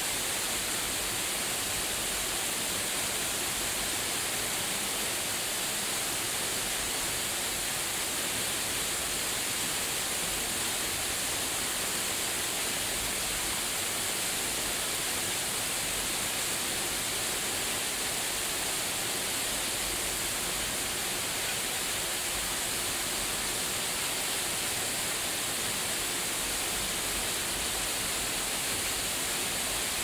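Manai Falls waterfall pouring into a pool in a rock gorge: a steady, unchanging rush of falling water, strongest in its high hiss.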